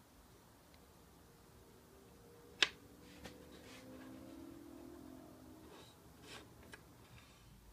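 A small turned wooden piece is set down on a wooden box with a sharp click about two and a half seconds in, then handled and moved along its edge with faint rubbing and a few softer clicks; low room tone between.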